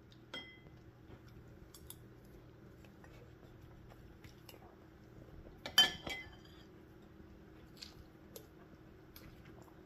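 A metal spoon against a ceramic plate, giving a few scattered light clinks and scrapes; the loudest are a couple of sharp clinks about six seconds in. A low steady hum runs underneath.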